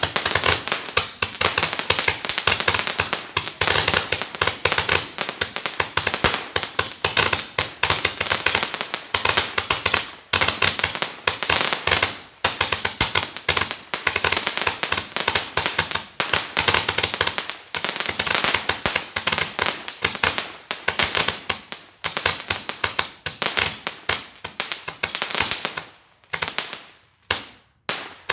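Consumer firework going off: a dense, continuous run of rapid crackling pops and bangs that thins to a few separate pops near the end.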